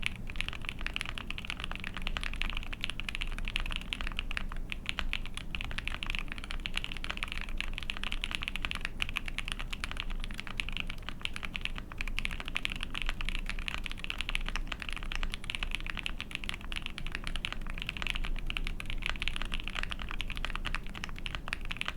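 Continuous fast typing on an ai03 Vega mechanical keyboard with a POM plate, GMK keycaps and lubed Lavender linear switches: a dense, steady stream of muted keystroke clacks.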